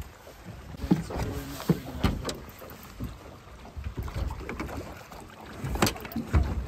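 Wind buffeting the microphone, with scattered knocks and thumps, and a splash about six seconds in as a large striped bass thrashes into a landing net at the side of the boat.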